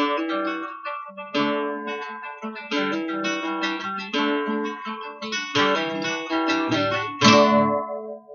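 Acoustic guitar playing the closing bars of a song: picked notes and strummed chords, ending on a final strummed chord about seven seconds in that rings briefly before it stops.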